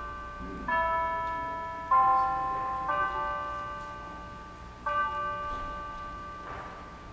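Chime bells struck slowly, four strokes in all, each a cluster of bell tones that rings on and slowly fades; the last stroke comes after a longer pause.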